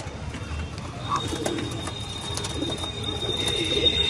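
Domestic pigeons cooing, with a thin, steady high-pitched tone that starts about a second in and holds.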